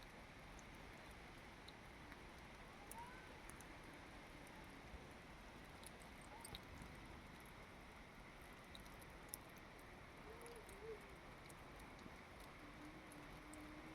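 Faint steady rain with scattered drop ticks, and a few soft distant bird calls now and then.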